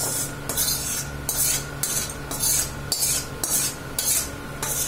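Metal spoon scraping cooked rice out of a wok (kadai), in repeated scrapes about twice a second.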